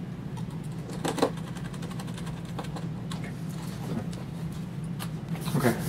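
A few light clicks of wire ends being worked into screw terminals with a small screwdriver, over a steady low hum.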